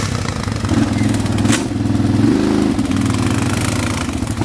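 ATV engine running on an off-road trail, its pitch rising and falling in steps with the throttle. One sharp knock about a second and a half in.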